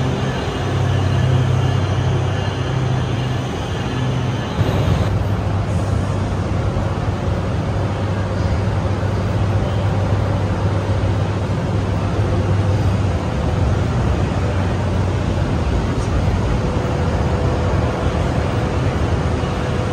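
A stationary NJ Transit train's engine idling at the platform: a steady low hum over continuous station background noise. The hum eases about two-thirds of the way through, and a faint steady tone comes in near the end.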